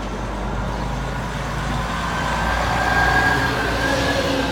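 A heavy road vehicle passing close by: a low engine rumble that grows louder, with a high, nearly steady squeal joining it about two seconds in.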